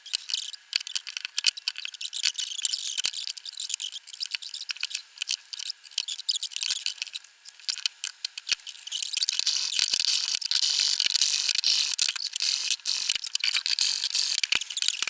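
Dense electronic crackling and static: rapid irregular clicks over a hiss, thin and high with no low end, growing louder about nine seconds in. This is a wireless microphone or recorder breaking up as its battery fails.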